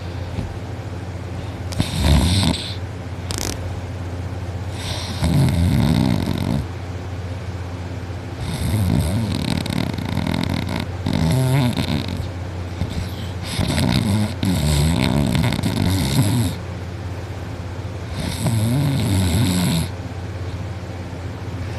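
A person in deep sleep snoring heavily, a loud snore every three seconds or so, some of them drawn out.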